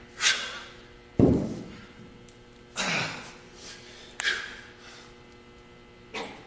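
A man's sharp, forceful exhalations, one with each rep of a heavy 55-pound kettlebell exercise: five hard breaths out, about every one and a half seconds.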